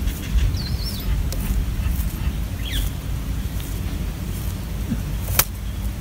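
A steady low rumble with a few faint, short high chirps from begging bulbul nestlings, about one and three seconds in. A single sharp click near the end.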